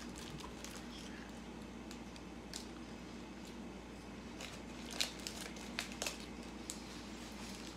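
Paper burger wrapper crinkling as it is opened, then a burger being bitten and chewed, heard as a few scattered soft crinkles and mouth clicks over a faint steady hum.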